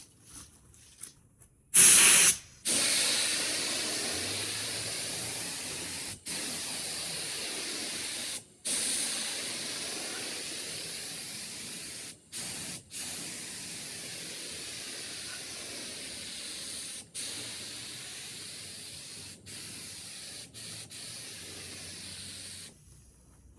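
LVLP paint spray gun hissing as it sprays water-based stain, starting about two seconds in and cut by about eight short breaks as the trigger is released and pulled again. The hiss grows steadily weaker because the air pump has been switched off and the air pressure is falling.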